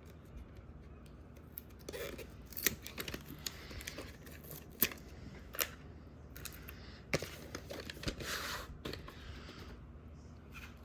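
Handling of a VHS cassette and its case: several sharp plastic clicks spread out, with short stretches of rustling and scraping as the tape is taken out.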